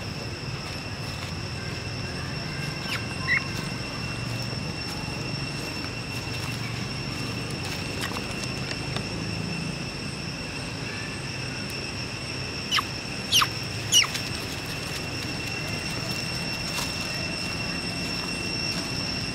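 Steady high-pitched drone of insects in the woodland. Over it come a few short, sharp squeaks: one about three seconds in, and three in quick succession a little past the middle, which are the loudest sounds.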